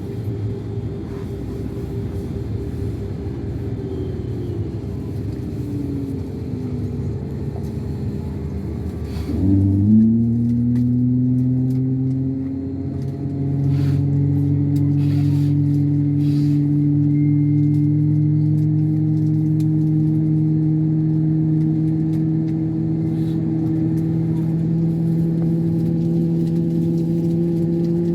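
Airliner engines: a steady low rumble, then about nine seconds in the engines grow louder with a low hum that climbs slowly and steadily in pitch, as when thrust is brought up for takeoff.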